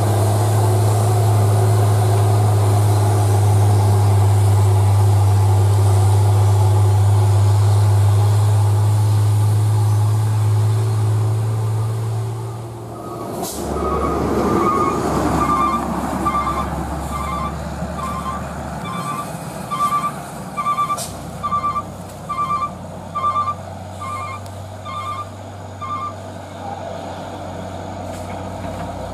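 Heavy diesel dump truck engine pulling steadily under load, a loud even hum. About halfway through another truck's engine takes over, and an electronic warning beeper sounds about one and a half times a second for some ten seconds.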